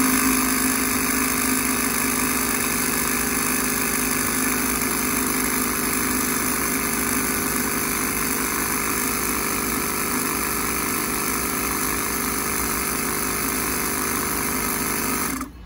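Air compressor running steadily, a motor hum over a hiss, inflating a dirt bike's tube-type tyre; it cuts off abruptly near the end.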